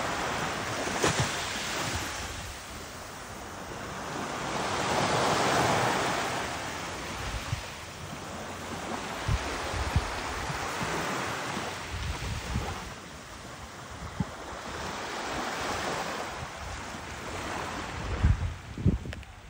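Small waves breaking and washing up a sandy beach, the surf swelling and fading every few seconds. Wind gusts rumble on the microphone.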